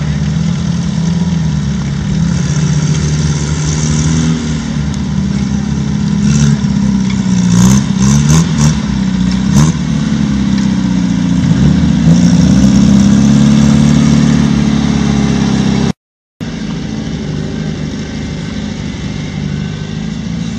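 Willys jeep's four-cylinder engine working off-road, revving up and down in pitch as it crawls over rough ground. A few sharp knocks come about eight seconds in, the engine is loudest a little after the middle, and the sound cuts out for half a second near the end.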